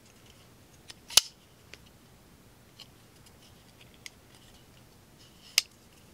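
Steel Will Plague Doctor folding knife being flipped open and closed: two sharp metallic snaps, about a second in and near the end, as the blade swings open and locks, with lighter clicks of the blade and handle between.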